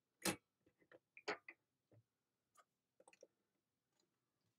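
A few short clicks and light taps of hands working a stamp positioning platform: its hinged clear lid being lifted and a stamped card shifted on the plate. The sharpest click comes about a quarter second in, with another about a second later; the rest are faint.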